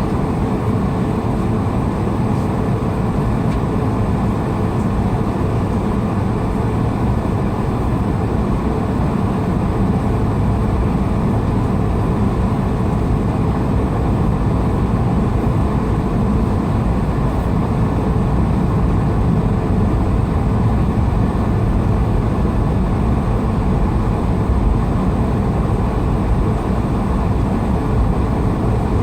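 Steady cabin noise of an Airbus A220-300 airliner in flight: its Pratt & Whitney PW1500G geared turbofan engines and the airflow make an even, loud rumble that does not change.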